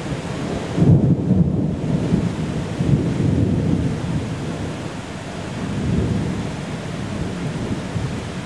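Thunder rumbling in low, rolling swells, loudest about a second in and building again around three and six seconds, over a steady hiss of heavy rain.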